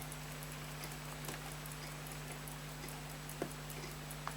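Fast, faint, steady ticking of a running timepiece, about five ticks a second, over a steady low electrical hum, with a few small separate clicks.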